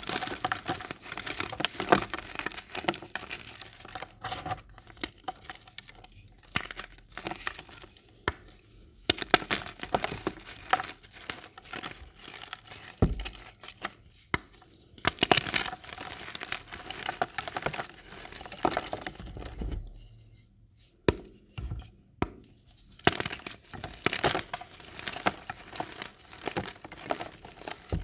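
Reformed gym chalk blocks crushed and crumbled by hand: dry crunching and crackling in bursts, with sharp snaps as pieces break and a few short pauses.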